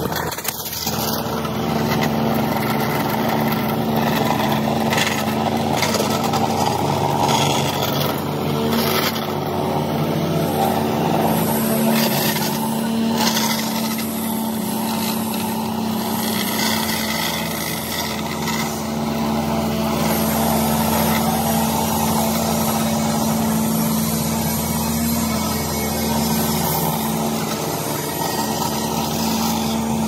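Engines of road-paving machinery, such as a pneumatic-tyred roller and an asphalt paver, running in a steady, even drone. A few brief knocks sound over it.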